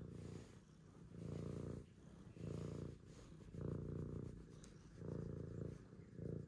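Domestic cat purring while its head is stroked, a contented purr that swells and fades with each breath, about once a second.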